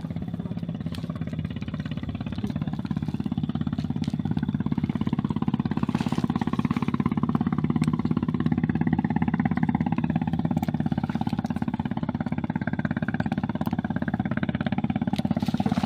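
A steady low mechanical drone with a fast, even pulse, like a small motor running without a break.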